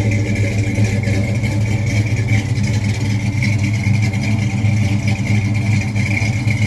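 A motor vehicle's engine running loudly at a steady speed.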